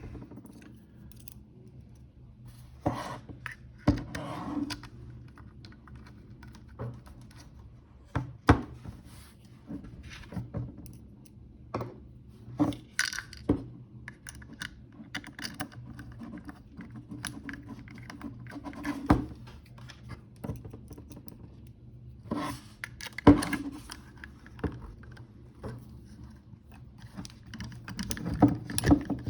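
Scattered small clicks, taps and short scrapes of countersunk screws being driven by hand and metal gearmotor parts being handled, coming at irregular moments, over a faint steady low hum.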